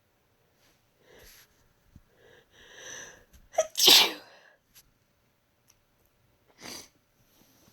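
A woman with a head cold sneezing: a breathy build-up of catching breaths, then one loud, sharp sneeze about four seconds in. A shorter breathy sound follows near the end.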